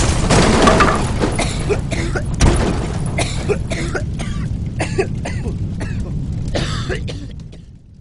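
Fireworks going off: the rumble of a big blast dies away under a long run of sharp crackling pops, which thin out and fade near the end.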